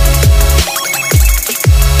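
Electronic background music with a driving beat and deep bass notes that slide down in pitch again and again.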